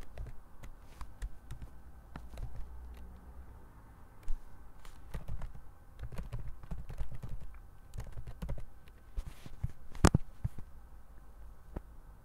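Typing on a computer keyboard: short, irregular key clicks, with one louder click about ten seconds in.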